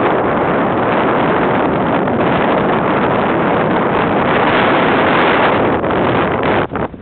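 Wind rushing over the camera microphone from an off-road jeep driving fast across desert sand, with the vehicle's running noise underneath: a loud, steady roar that drops off abruptly near the end.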